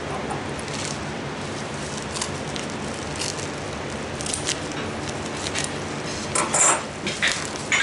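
Hatching eggs being handled and set into a holder: light taps and rustling over a steady background noise, with a louder cluster of rustling clicks about six seconds in.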